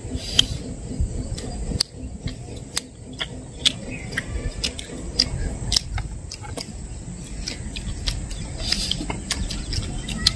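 People eating chicken pizza: chewing with wet mouth clicks and smacks, heard as sharp irregular clicks over a low rumble.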